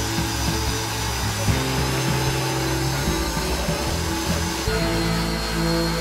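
Rotary power-carving tool with a small sanding drum whirring as it grinds tupelo wood, under background music of held notes that change every second or two.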